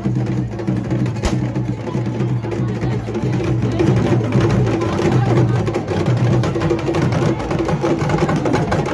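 Drum and percussion music with a dense, steady rhythm.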